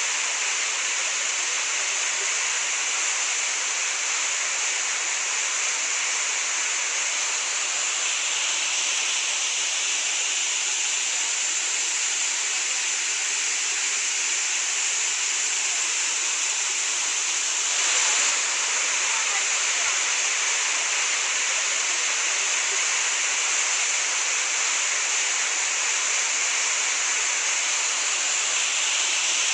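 Waterfall rushing as it drops into a deep rock gorge: a steady, dense noise of falling water, briefly a little louder about eighteen seconds in.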